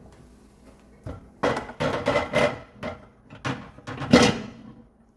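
Clattering knocks as a microwave's glass turntable plate and its rotating roller ring are set back in place, with the loudest knock about four seconds in.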